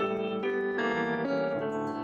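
Solo grand piano playing, its chords changing about twice a second.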